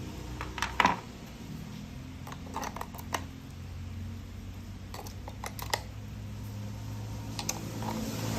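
Light scattered clicks and taps of plastic toy-train parts being handled and fitted together, in small clusters a few seconds apart.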